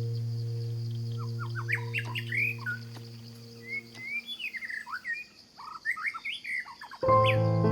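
Birds chirping and calling in quick, short, gliding notes, over a low steady drone that fades out about halfway through. Music with pitched notes starts near the end.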